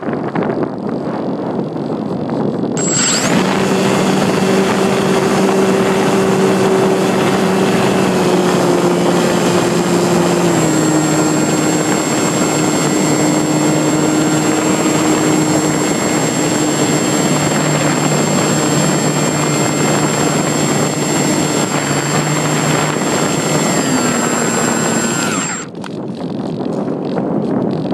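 Wind rushing over the RC glider's onboard phone microphone; about three seconds in, the glider's electric motor and propeller start with a steady whine and a high thin tone, the pitch stepping lower a few times, until the motor cuts off near the end and only the wind is left.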